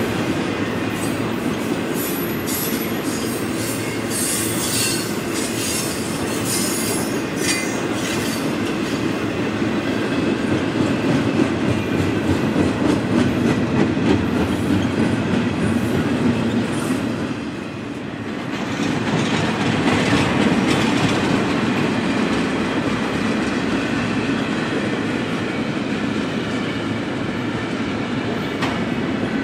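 Double-stack intermodal freight train rolling past at speed: a steady rumble and clatter of well-car wheels on the rails. Brief high-pitched wheel squeals come in the first several seconds, and there is a short dip in the noise about two-thirds of the way through.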